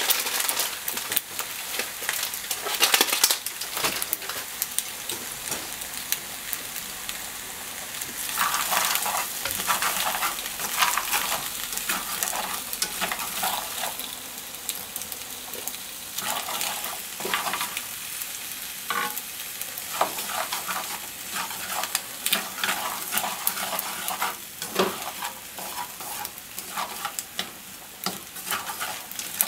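Macaroni, onion and corn sizzling in a frying pan as they are stir-fried, with irregular clicks and scrapes of chopsticks stirring and tossing them against the pan.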